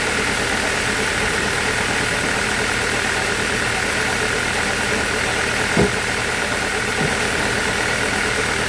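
Sawmill machinery running steadily with a constant high whine over a low hum, with a sharp knock about six seconds in and a fainter one a second later.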